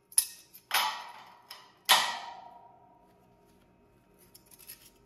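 Pieces of cut steel clanking against metal three times, the loudest about two seconds in, which leaves a short ringing tone that fades.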